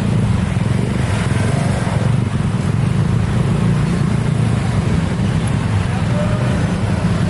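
Steady, loud low rumble of vehicles, holding an even level with no clear build-up or fade.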